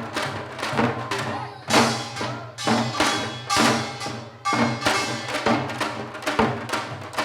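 Janggu (Korean hourglass drums) played in a fast seoljanggo rhythm: a dense run of sharp stick strokes, with heavier ringing accents about once a second in the middle.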